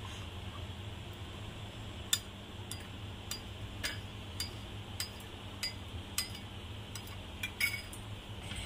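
A spoon stirring honey into the strained herbal tea, clinking against the side of the cup at a steady pace, a little under twice a second. The clinking starts about two seconds in and stops shortly before the end.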